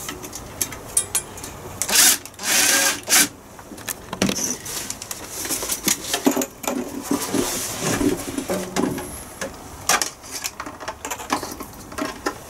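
Irregular clicks, knocks and scraping as a diesel air heater unit and its flexible metal exhaust and intake pipes are handled and moved into place, with a louder rustling scrape about two seconds in.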